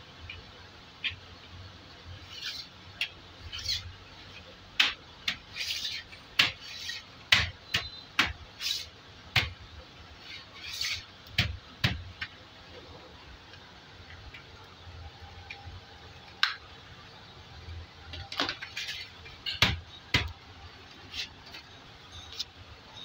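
Plastic folding laundry basket handled by hand: irregular sharp plastic clicks, taps and knocks from its rim and mesh sides, in two busy spells with a quieter stretch between.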